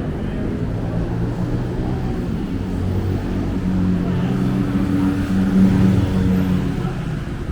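City street traffic: vehicle engines running, with one engine growing louder, loudest about six seconds in, then fading as it passes.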